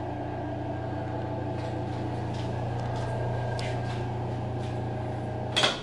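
Ventilation fan humming steadily with a mix of fixed tones, cut short by a click near the end, after which the hum dies away.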